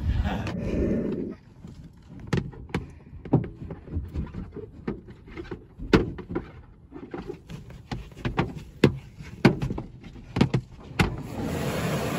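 A run of irregular sharp knocks and clicks, then from about eleven seconds a loud, steady hiss of a car-wash pressure wand's water spray striking the car, heard from inside the car.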